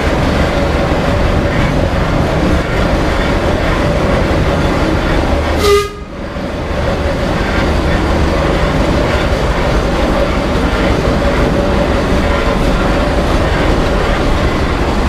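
Steady rumble and clatter of a passenger carriage being towed behind a steam traction engine, with a faint steady whine running through it. About six seconds in there is one brief sharp burst, and the sound dips for a moment before the rumble resumes.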